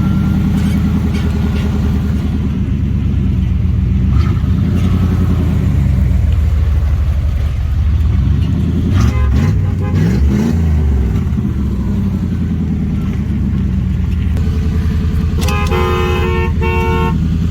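A vehicle engine running steadily at low speed, its pitch rising and falling briefly about halfway through. Near the end the horn is sounded in a few short honks.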